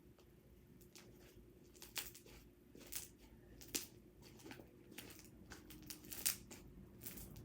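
Slime mixed with foam beads being squeezed and pressed by hand, giving faint, irregular crackles and sharp pops; the loudest comes about six seconds in.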